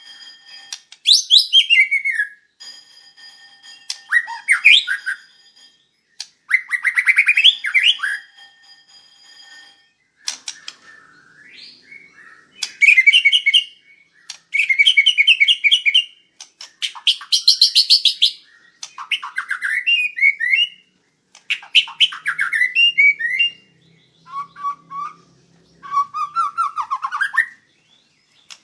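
White-rumped shama singing loudly and in full voice, in phrases of one to two seconds with short pauses between them. The phrases mix clear whistles that glide up and down with fast rattling trills.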